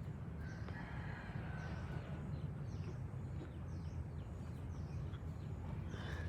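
A rooster crowing once, a held call of about a second and a half starting about half a second in, with another crow beginning near the end. Short high chirps repeat about every 0.7 s over a steady low rumble.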